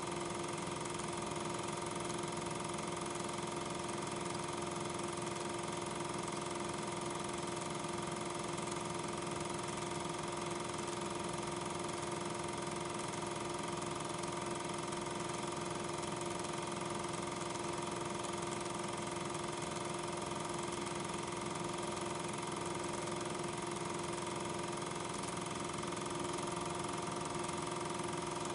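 Steady, unchanging running hum of an 8 mm film projector during transfer, with a constant tone through it. It does not follow the trolleys on screen.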